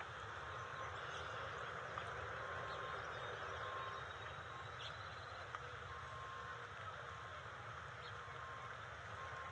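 A faint, distant vehicle reversing alarm beeps about once a second, with gaps, over a steady low engine hum and outdoor background noise, with a few faint bird chirps.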